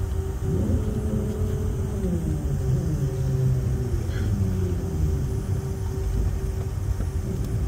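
Cabin noise inside a Boeing 717-200 taxiing on its two Rolls-Royce BR715 engines: a steady low rumble with a constant hum. In the first three seconds a few tones slide down in pitch.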